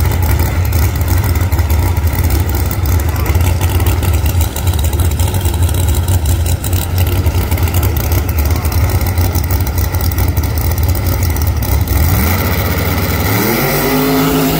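Drag-race Corvette's V8 idling loudly with a deep, steady low rumble, then revving up with a rising pitch near the end.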